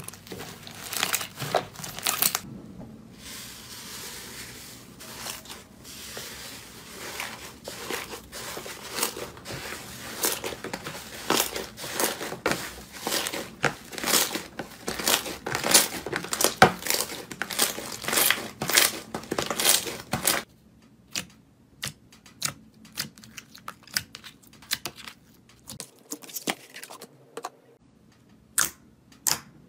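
Slime being stretched, squeezed and kneaded by hand, giving dense crackling pops and tearing sounds. About 20 seconds in this switches to sparse, sharp single pops as fingers press into a jelly-like slime.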